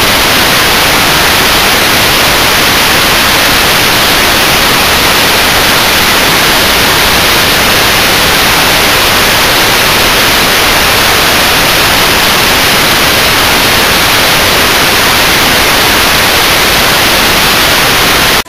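Loud, steady hiss of television static (white noise), even across all pitches, cutting off abruptly at the end.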